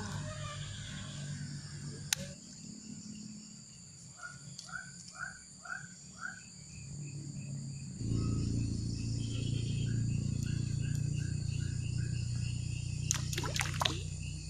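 A steady high insect drone with a short run of five evenly spaced calls about four seconds in and another run of calls after nine seconds. A low steady rumble sets in about eight seconds in, and a few sharp clicks come near the end.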